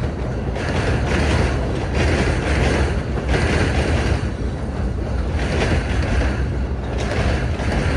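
Freight train cars rolling past with a steady low rumble, rising and falling roughly every second, mixed with wind buffeting the microphone.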